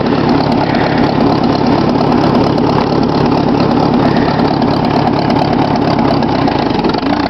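1954 Ford NAA tractor's four-cylinder engine running steadily, still cold, about a minute after a winter cold start.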